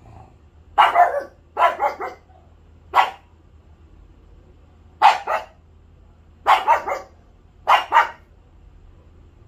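A dog barking in six short bouts of one to three quick barks, a second or two apart.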